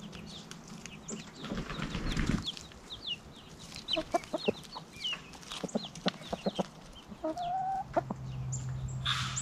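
Domestic chickens, a rooster and a hen among them, clucking quietly while foraging, with many short high chirps throughout.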